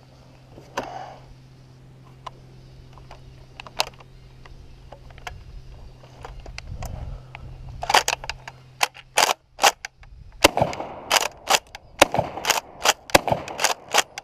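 A rapid string of gunshots, about two or three a second, starting a little past halfway through, after some faint scattered clicks and knocks.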